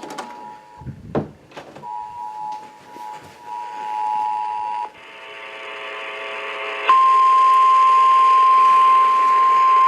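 Two-tone EAS attention signal sounding, breaking off for about a second near the start and then resuming. About five seconds in it gives way to a buzzy hum with static. About seven seconds in a single loud, steady 1050 Hz NOAA Weather Radio warning alarm tone starts and holds.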